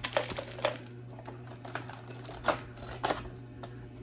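Plastic and paper toy packaging being handled: irregular crinkling rustles and sharp clicks.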